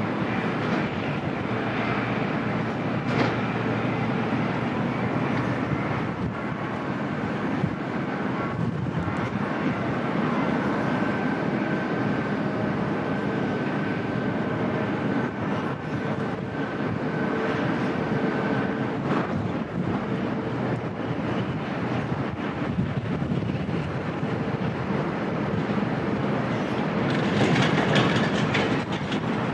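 Bombardier CRJ-700ER's twin turbofan engines running during its landing, a steady roar with a faint whine in it that swells a little near the end.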